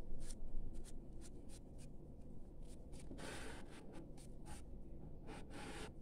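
Scratchy rubbing and small clicks of a gloved hand working powder detergent in a front-load washing machine's plastic dispenser drawer, with two longer scraping rustles, one about halfway through and one near the end.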